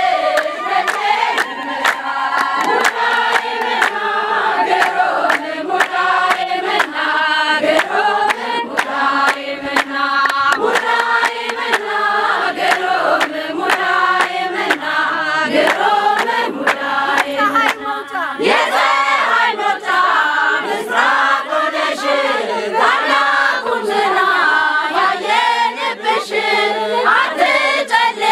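A group of women singing an Ethiopian Orthodox hymn together, a sustained choral chant of many voices.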